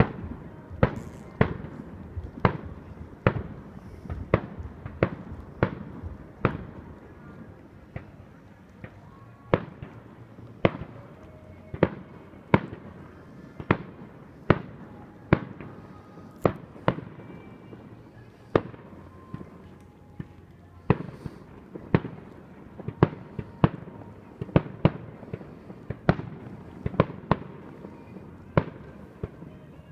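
Fireworks display: a continuous run of sharp bangs from bursting shells, about one a second, sometimes two in quick succession.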